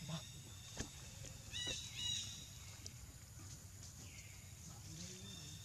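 Two short, high-pitched chirping animal calls about half a second apart, a little under two seconds in, preceded by a single sharp click, over faint outdoor background.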